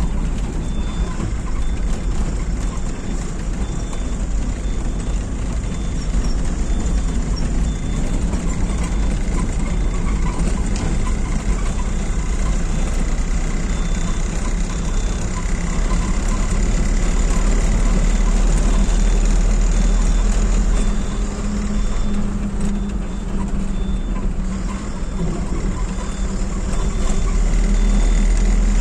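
Vehicle engine and road noise heard from inside the cab while driving, a steady low rumble. A faint high beep repeats evenly through much of it.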